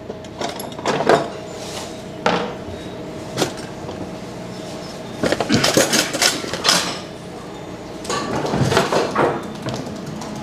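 Kitchen dishes and utensils being handled: a string of separate knocks and clinks, busier around the middle and again near the end, as a bowl of chocolate is readied for melting.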